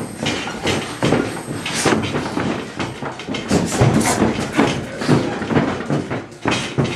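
Boxing sparring: gloved punches thudding on gloves and headgear and feet scuffing on the ring canvas, in quick, irregular knocks that are busiest around four seconds in.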